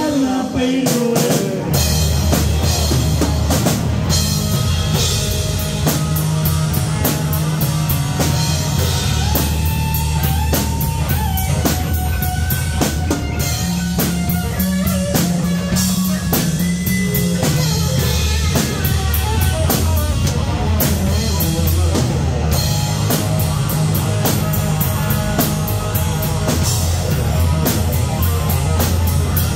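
Live rock band playing an instrumental passage: electric guitar, electric bass and drum kit together, with no singing. The bass and kick drop out briefly at the start and come back in about a second and a half in.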